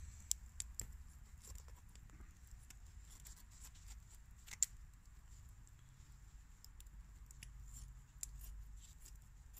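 Scissors snipping through denim: scattered faint clicks of the blades, with one sharper snip about halfway through.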